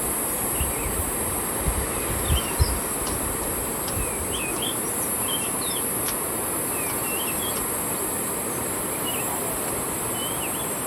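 Steady high-pitched insect drone with short bird chirps repeating every second or so, over a steady rushing background; a few low thumps in the first few seconds.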